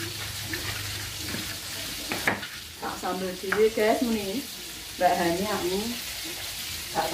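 Pestle grinding chilli sambal in a mortar, scraping and knocking for about the first two seconds, over a steady hiss that lasts the whole time.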